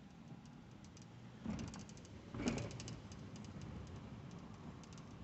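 Faint low rumble of a car moving slowly, heard inside the cabin, with scattered light clicks and two brief louder bumps, about one and a half and two and a half seconds in.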